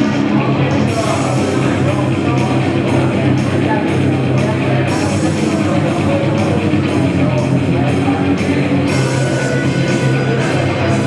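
Live amplified rock music played loud, with a steady beat.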